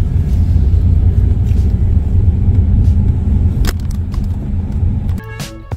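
Steady low rumble of a lifted Honda Element driving on a wet street, heard from inside the cabin, with one sharp click near the end. About five seconds in the rumble cuts off and background music begins.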